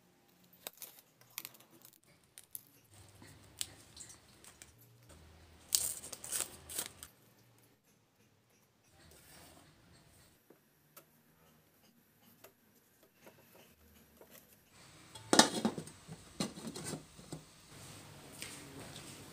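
Fresh banana leaves crackling and rustling as they are handled and folded, in scattered sharp clicks. Louder knocks of footsteps on a tiled floor come near the end.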